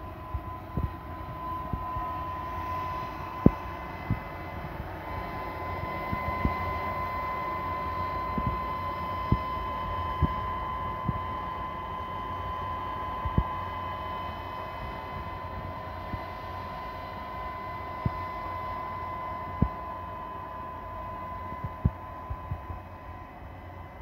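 Compact vacuum street sweepers running, a steady hum with a whine on top that fades near the end. Irregular sharp clicks sound now and then over it.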